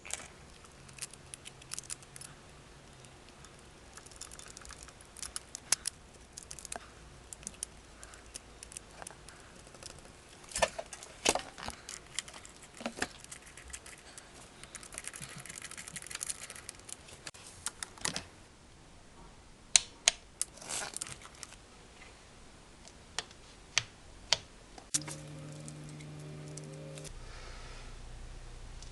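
Irregular clicks, clinks and light knocks of hand tools and small metal parts being handled during scooter starter-clutch work. Near the end a short steady hum.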